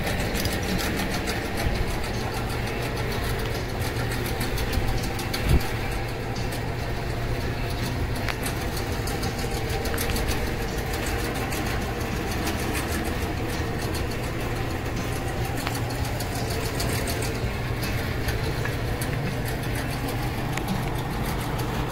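Ford Mustang 5.0 V8 engine idling steadily, with a single brief knock about five and a half seconds in.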